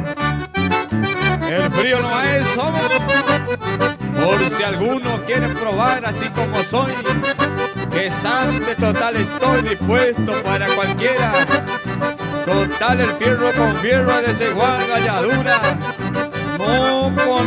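Accordion-led instrumental music with a steady, regular bass line.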